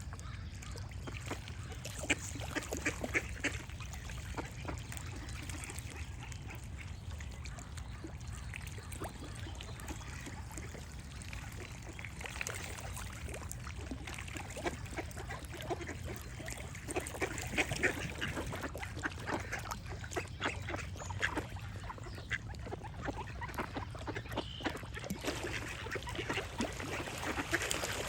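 A duck quacking in bouts of short raspy calls, with pauses between the bouts, over a steady low rumble. A few faint bird chirps come in near the end.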